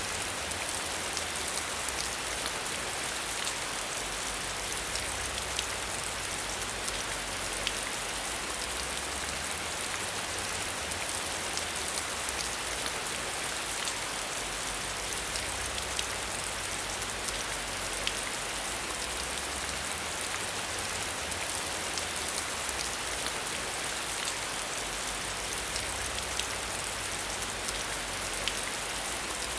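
Steady rain falling, a continuous hiss with many small scattered drop ticks.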